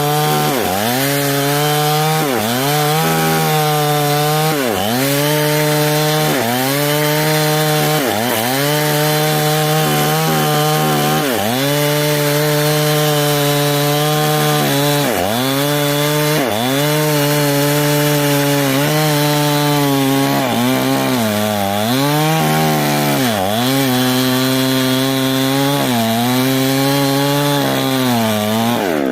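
Stihl chainsaw running at high revs while cutting wood. Its engine note dips briefly and recovers about every one and a half to two seconds as the chain bogs down in the cut.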